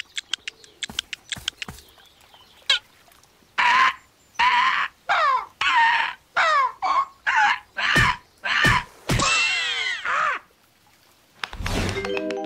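Cartoon bird clucking and squawking: a quick run of pecking taps, then a string of about ten short calls, each falling in pitch, the last one longer. A thud comes near the end.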